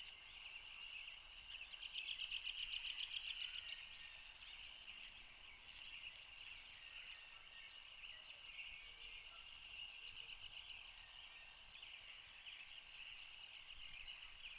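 Faint, steady chorus of high-pitched frog calls, growing louder and more pulsing about two seconds in, with a short higher chirp repeating about every half second over it.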